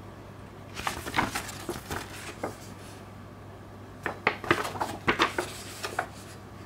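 Folded glossy paper leaflet being unfolded by gloved hands: crisp rustling and crackling of the paper in two spells, about a second in and again about four seconds in, over a steady low hum.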